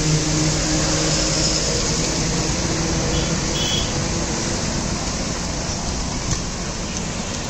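Strong monsoon storm wind rushing and gusting, buffeting the microphone with a loud, steady noise. A low engine hum sits underneath in the first couple of seconds, then fades.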